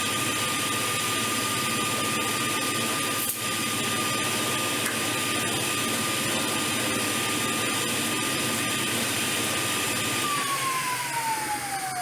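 Woodworking power saw running with a steady whine. It is switched off about ten seconds in and winds down, its pitch falling as the blade coasts to a stop.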